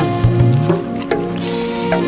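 Background music with held notes, percussion strikes and a sliding bass note that recurs about every two seconds.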